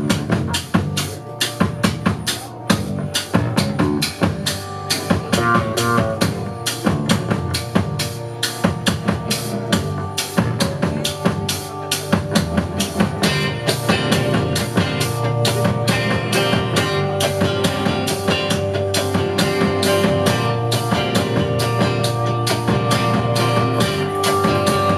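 Live band playing an instrumental passage: drum kit keeping a fast, steady beat, with upright bass and picked string instruments. The band fills out and gets a little louder about halfway through.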